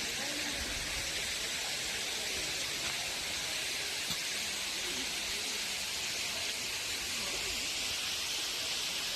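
Rushing water, a steady, unchanging rush with no separate events.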